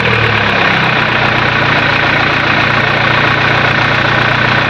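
Carbureted Toyota Corolla 2E four-cylinder engine idling steadily.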